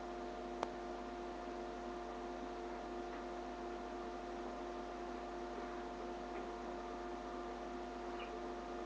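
Steady electrical hum with a faint hiss, picked up by a webcam's microphone, with a single small click about half a second in.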